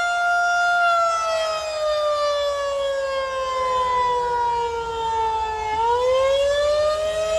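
Outdoor warning siren sounding during a test activation: one loud tone that holds steady for about a second, slides slowly down in pitch for several seconds, then rises back up near the end.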